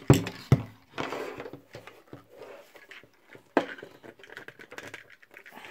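Hard plastic knocks and clicks of a Body Glove AIRE full-face snorkel mask being handled and its snorkel piece pushed into place: two sharp knocks right at the start and another about three and a half seconds in, with light rattling and scraping in between.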